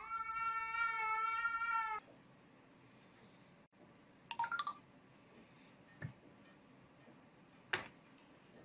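A cat's long, steady meow, held for about two seconds, then cut off abruptly. After it, near quiet, broken by a brief higher call about halfway through and a sharp click near the end.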